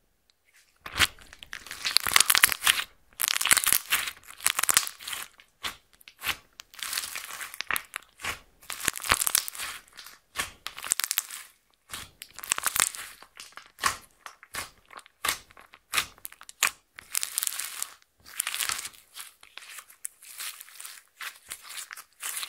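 Slime being squished, stretched and folded by hand: sticky crackling and popping in repeated bursts, starting about a second in.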